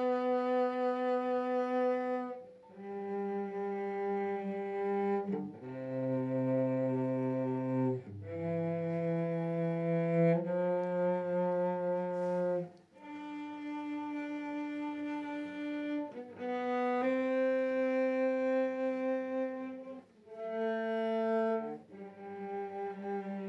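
Background music: slow, bowed-string notes, each held about two seconds, sometimes a low note sounding under a higher one.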